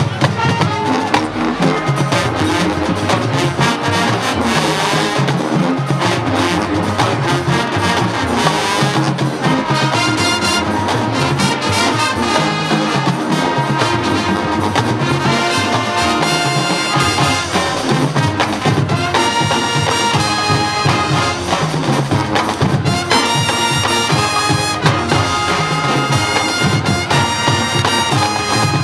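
High school marching band playing its field show: a full brass section playing loud sustained chords over steady drumline and front-ensemble percussion.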